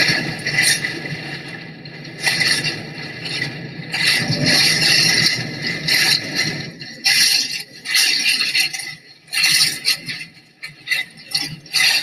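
Hurricane-force wind and rain blowing hard against a phone's microphone. It is a steady rush at first, then breaks into irregular gusts with short lulls in the second half.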